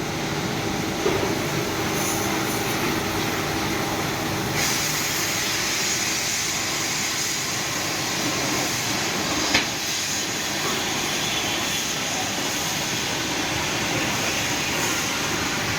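Steady loud machinery noise of a steel-melting induction furnace shop, a constant rumble and hiss with a faint hum, broken by two brief knocks about a second in and near the middle.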